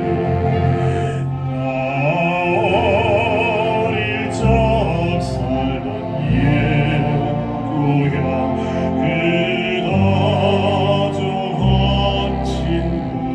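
Baritone singing a Korean art song in an operatic style, with wide vibrato on held notes, over orchestral accompaniment.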